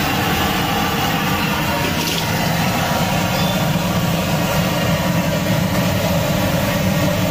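Hot oil sizzling steadily in a large kadai as dal vadas deep-fry, a dense hiss with no pauses.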